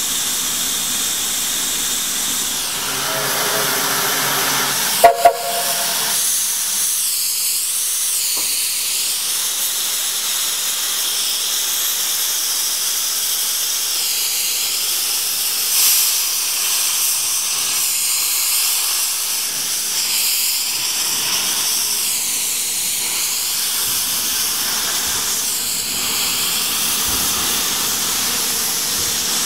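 Steam locomotive Mount Lyell No. 5, an Abt rack tank engine, venting steam with a loud, steady hiss. A brief pitched note sounds a few seconds in, and two sharp clicks come about five seconds in.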